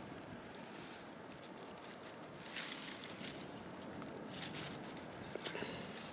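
Dry fallen leaves and twigs rustling and crackling as a shed roe deer antler is picked up from the forest floor, in two short bursts about two and a half and four and a half seconds in, with a sharp crackle near the end.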